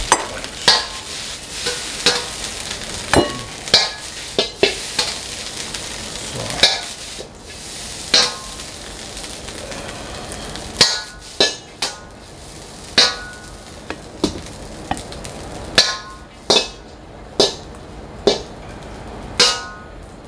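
Steel ladle clanging and scraping against a hot wok as fried rice is scooped out, sharp metallic strikes with a brief ring, irregular and roughly one a second, over a steady sizzling hiss.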